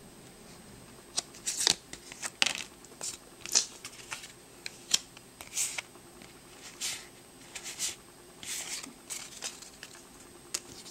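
Yu-Gi-Oh trading cards being flipped through by hand and set down: a string of short, crisp swishes and flicks of card sliding against card, starting about a second in and going on until near the end.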